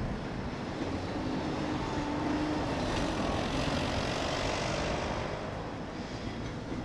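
Freightliner Class 70 diesel locomotive's GE PowerHaul V16 engine running as it approaches hauling a container train: a steady engine drone with a faint whine, swelling a little around the middle.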